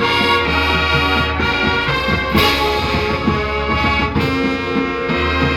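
High school marching band playing, the brass section sounding loud held chords, with strong accented hits about two and a half seconds in and again near four seconds.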